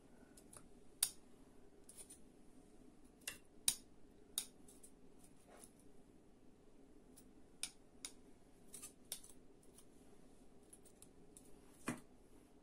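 Sparse, irregular light clicks and taps of handling at a ceramic baking dish as fried Baltic herring are laid onto sliced potatoes, over a faint steady hum.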